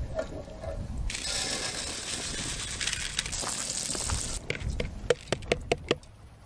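Rice poured into a hot metal pot, hissing steadily for about three seconds, then a quick run of sharp, ringing metallic clinks against the pot.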